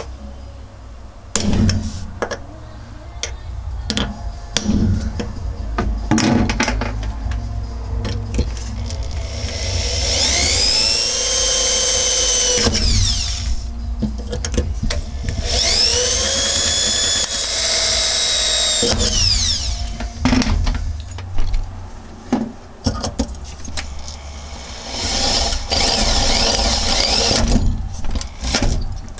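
Power drill boring through the sheet-steel cargo floor of a 1977 VW Bus in two runs, its motor whining up to speed and winding down each time, with a third run near the end. Scattered knocks and taps come before the drilling.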